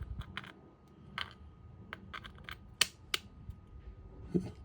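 A handful of light, irregular clicks and taps of hard plastic being handled as a 3D-printed showerhead holder is tried on its fitting, one sharper click about three seconds in.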